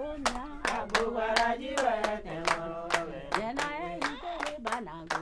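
Voices singing together over steady rhythmic handclapping, about three claps a second.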